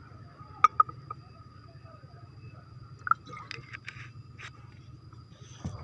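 A few sharp clicks and knocks: two close together about half a second in, another near three seconds, a run of lighter clicks after it and a dull thump near the end, over a steady electrical hum.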